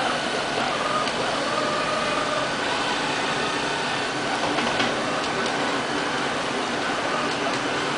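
LL-A320 robotic vacuum cleaner running on a glass tabletop: a steady whir of its suction fan and brush motors, with a few faint ticks.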